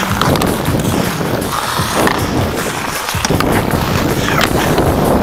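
Hockey skate blades scraping and carving on rink ice as the skater moves, with a few sharp clicks of sticks and puck.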